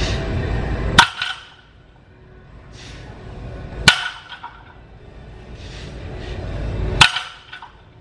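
A loaded barbell with iron plates set down on the gym floor at the end of each deadlift rep, three times about three seconds apart, each a sharp clank of metal plates with a short ringing tail. A rush of noise swells up before each clank.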